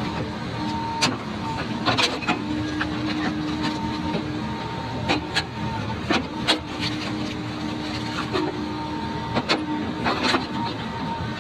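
Hydraulic excavator running, its hydraulics whining on and off while a jawed stump attachment works a tree stump, with about a dozen sharp cracks and knocks as the stump and roots break up.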